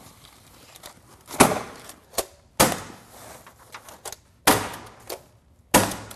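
Hammer stapler driving staples through Tyvek DrainWrap housewrap into wood studs: four loud strikes and one lighter one, irregularly about a second apart, with the wrap rustling between them.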